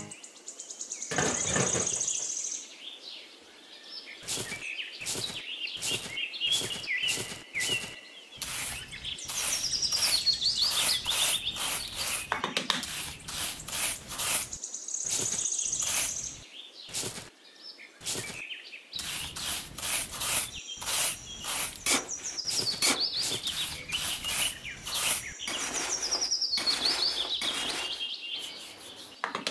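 Birds chirping, with short descending trills that recur every few seconds, over repeated short scrapes of a small trowel digging and scooping sand.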